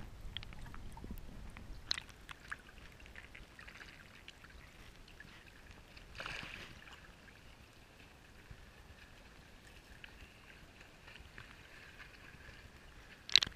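Water sloshing and gurgling around a camera at the water's surface as a snorkeler swims. There is a rush of water about six seconds in and a sharp splash near the end.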